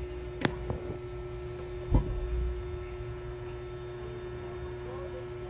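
Hot air rework station blowing with a steady hum while it heats a shorted MOSFET on a laptop motherboard to desolder it. Two sharp clicks come about half a second in, and a louder one about two seconds in.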